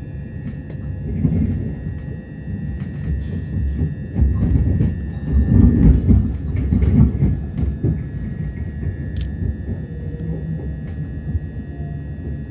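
Electric passenger train heard from inside the carriage as it runs into a station: a low rumble of wheels on rail, swelling into a louder rattling rumble about four to seven seconds in, with scattered clicks and a faint steady high whine.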